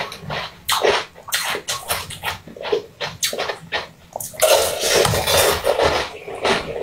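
Close-up eating mouth sounds from someone biting and sucking on a large frozen treat: many short wet crackles and clicks. About halfway through comes a longer, denser stretch of slurping and crunching.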